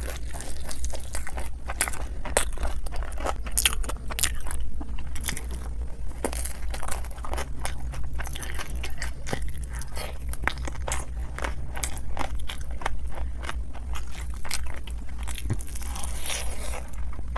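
Eating sounds of a person eating a rice dish with her bare hand: fingers mashing rice and mouthfuls being chewed, a dense run of quick sharp clicks over a steady low hum.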